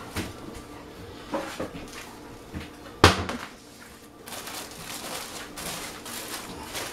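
Kitchen handling sounds: a few light knocks, then one sharp clack about three seconds in as things are got out and set down on the counter, followed by a soft, steady hiss.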